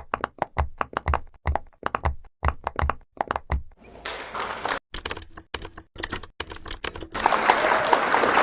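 Objects tapped against a microphone in a quick run of sharp knocks, about two to three a second. Then they are rubbed and scraped on it, making a scratchy rustling noise with clicks that turns loud about seven seconds in and cuts off suddenly.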